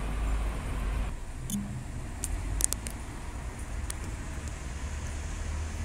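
Outdoor background noise: a steady low rumble like distant road traffic. It changes abruptly about a second in, and a few faint sharp clicks come near the middle.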